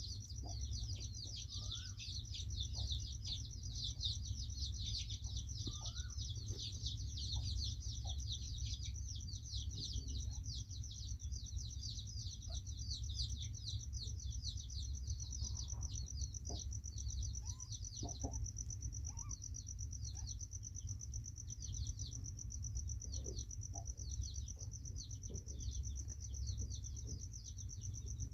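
Continuous chirping of many small birds, rapid high chirps overlapping without a break, over a low steady rumble.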